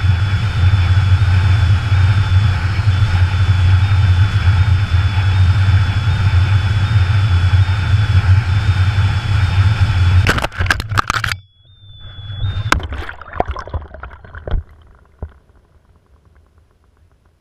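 Wind rushing over a helmet-mounted GoPro as the lost skydiving helmet tumbles down on its own: a loud, steady rush. About ten seconds in it breaks into crackling hits and cuts off as the helmet lands in a stream, and a few muffled knocks follow and fade away.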